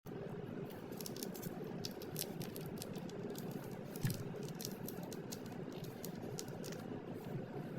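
Smooth Chihuahua puppy playing with a toy: a steady run of small light clicks and taps, with one louder thump about four seconds in.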